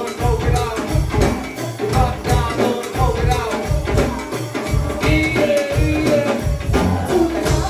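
Live go-go band playing: a steady drum and bass beat with hand percussion, and voices or melody lines over it.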